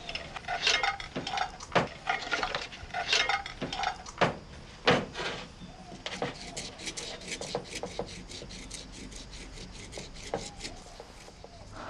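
Dishes and utensils clinking and knocking on a table, then a quick, even run of light ticks, about five a second, that stops a little before the end.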